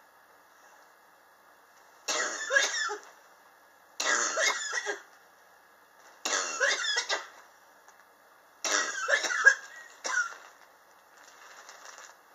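A person coughing in four bouts about two seconds apart, then one short cough. It is a chronic cough of nearly two years' standing, which the sufferer puts down to sharp temperature changes in his apartment.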